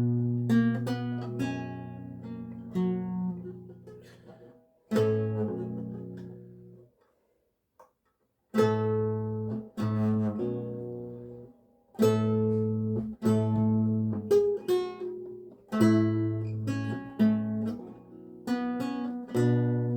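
Seven-course Renaissance lute tuned to A=415, played solo: plucked chords and single notes that ring and die away, with a short pause about seven seconds in before the playing resumes.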